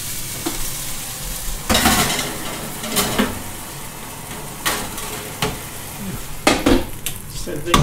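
Vegetables frying in oil in a pan, a steady sizzle, with a utensil stirring and knocking sharply against the pan several times.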